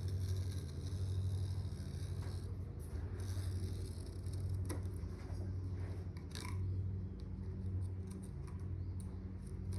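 Excess window-screen mesh being trimmed along the frame with a blade: scratchy cutting and scraping with a couple of sharp clicks, over a steady low hum.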